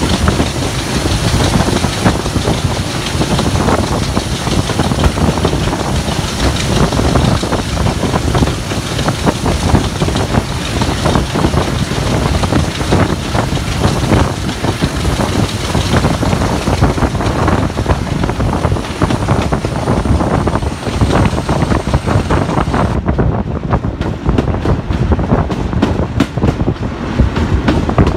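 Diesel locomotive running along the line, its engine and wheels heard from the cab side window, with heavy wind noise buffeting the microphone.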